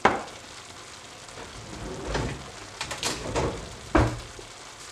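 Ground meat sizzling steadily in a frying pan, with a sharp knock right at the start and a few short knocks and clatters between about two and four seconds in.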